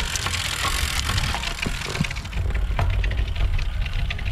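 Road bike rolling along a lane strewn with loose pothole-patch gravel, heard through a handlebar camera: a steady wind rumble with scattered sharp ticks of grit picked up by the tyres. A tyre hiss fades about two seconds in.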